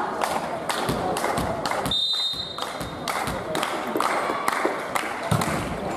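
A volleyball bounced on a sports hall floor before a serve, giving a string of sharp thuds. A short, high referee's whistle sounds about two seconds in.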